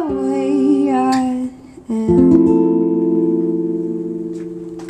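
Live acoustic pop song ending: female voices sing a held closing note in harmony, then a final chord strummed on guitar about two seconds in rings out and slowly fades.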